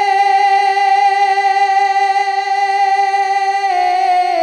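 A man singing a naat unaccompanied, holding one long high note with a slight waver, then stepping down in pitch near the end.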